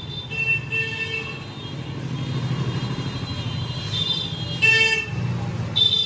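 Road traffic: a motor vehicle running with a steady low rumble, and several short horn toots.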